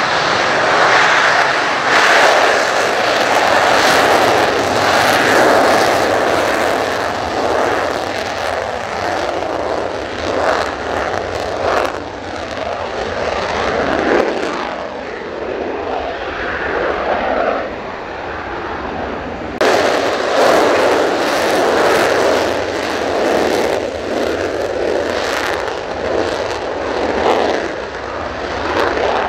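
A Mitsubishi F-2 fighter's single F110 turbofan at high power with the afterburner lit for takeoff: loud, continuous jet noise full of crackle. The sound changes abruptly about 20 seconds in, where the footage cuts to another stretch of the run.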